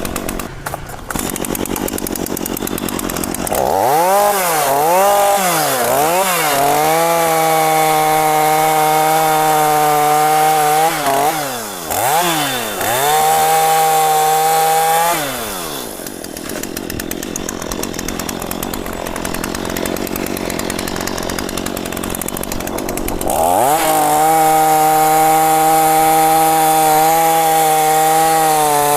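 Two-stroke chainsaw cutting mahogany: idling, then blipped up several times and held at full throttle, dropping back and revving again, settling to idle in the middle, and held at full throttle again through the last few seconds.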